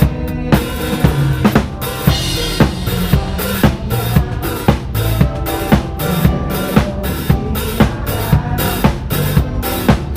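Drum kit played in a steady groove, with bass drum and snare strikes about two a second and hi-hat and cymbals, under a live pop band's bass and keyboard notes. A cymbal crash rings out about two seconds in.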